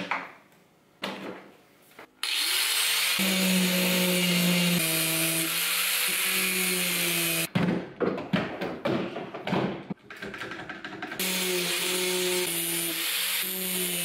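Angle grinder spinning up and grinding the stops off a steel quick-clamp bar, a loud steady run whose pitch steps down and back up as it cuts. It stops about seven seconds in for a few seconds of clicks and knocks as the clamps are worked, then grinds again for the last few seconds.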